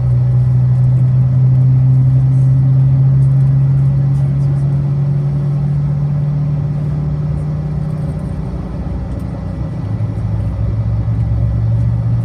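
Inside the cabin of a CRJ-700 regional jet, its rear-mounted GE CF34 turbofan engines run at low ground power with a steady low hum. The hum eases a little about eight seconds in and rises again near the end.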